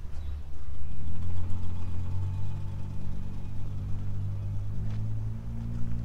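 An engine running steadily at low speed, coming in louder about a second in, its pitch stepping up slightly near the end.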